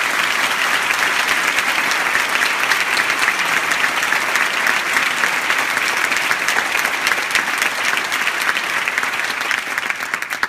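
Theatre audience applauding, a dense, steady clapping that breaks off near the end.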